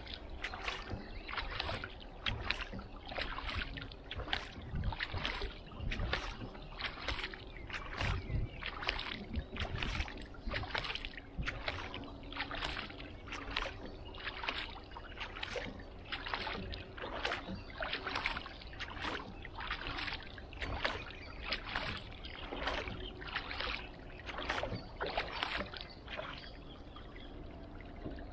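Kayak paddle strokes: the blade dips and splashes in a steady rhythm, about three strokes every two seconds. The strokes stop near the end, leaving the soft sound of water running off the hull and paddle.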